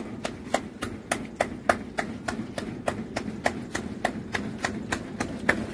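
Rhythmic knocking on a hand-held glass-noodle press, the perforated metal pot of starch batter being struck to drive the batter out in strands into boiling water, about three to four knocks a second with a short ring on each.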